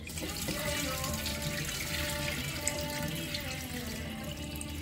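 Water from a kitchen tap running steadily into the sink as freshly washed bean sprouts are rinsed and drained.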